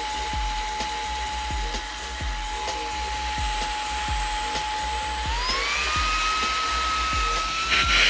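Xiaomi Mi Vacuum Cleaner Mini's motor running with a steady high whine. About five seconds in, the whine rises in pitch and settles higher: the motor is speeding up to its stronger suction setting after the power button is pressed.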